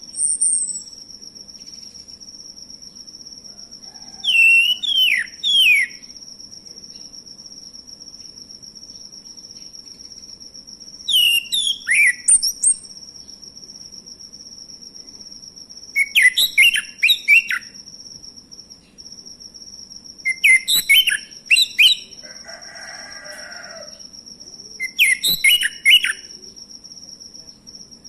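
Male orange-headed thrush singing in five short bursts of quick, varied, sliding phrases, one every four to five seconds, over a steady high-pitched insect trill.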